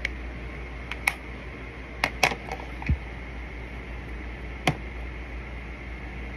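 Scattered light clicks and taps from handling a makeup compact and brush, with a duller knock about three seconds in, over a steady background hiss.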